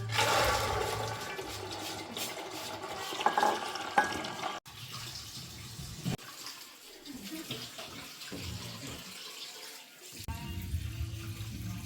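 Running water, a steady rushing noise, which breaks off abruptly about four and a half seconds in and carries on more quietly afterwards.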